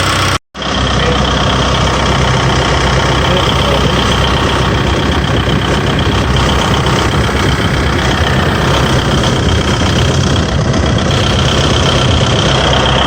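Volvo excavator diesel engine running steadily at idle, with its freshly fitted water pump and fan belt, warming up while air is bled from the cooling system. The sound cuts out for a moment about half a second in.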